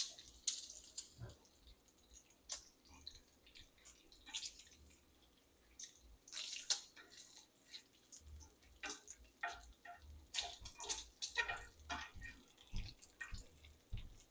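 Bacon strips frying in a pan on low heat, crackling and popping at irregular intervals.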